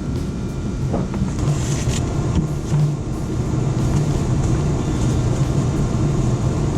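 Steady low mechanical hum, like a motor or machinery running, with a few faint clicks and knocks.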